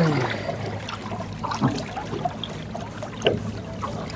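Water splashing and trickling against a small fishing boat, over the steady low hum of its motor running at trolling speed.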